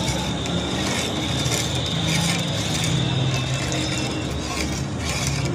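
Metal spoon stirring a liquid fishball sauce mixture in an aluminium pot: continuous scraping and clinking against the pot with the liquid swirling.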